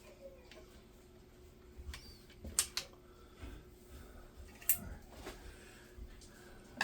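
Scattered light clicks and taps of small plastic RC-car kit parts and a screwdriver being handled, with two sharp clicks close together about two and a half seconds in and another near five seconds.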